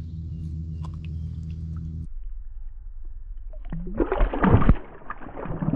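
A released bass splashing and thrashing at the water's surface close by, loudest about four seconds in, with more splashing near the end. Before that a steady low hum cuts off abruptly about two seconds in.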